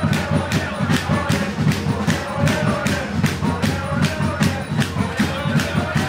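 Football supporters chanting together over a steady struck beat, about four beats a second, that keeps going without a break.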